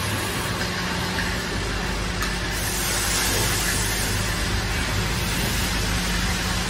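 Automatic plastic water tap assembly machines running with their vibratory bowl feeders: a steady machine hum under a broad hiss, the hiss growing brighter about two and a half seconds in.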